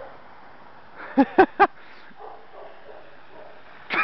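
A dog barking three times in quick succession about a second in.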